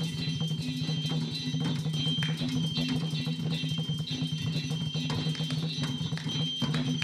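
Free-improvised experimental music from a home-made string-spring-drum instrument run through a looping pedal: a steady low drone under a repeating pattern of plucked, twangy string sounds and clicks.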